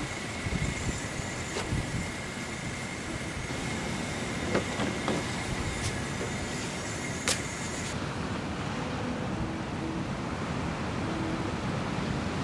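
Steady roar of a Coleman camp stove burner under a toasting tortilla, with a few light clicks as it is handled on the metal grate. About eight seconds in the sound changes to a duller, even rush.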